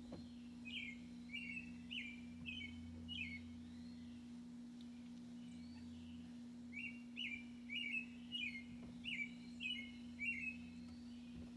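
A bird chirping in two runs of short repeated notes, about two a second, with a pause of a few seconds between the runs. A steady low hum sits underneath.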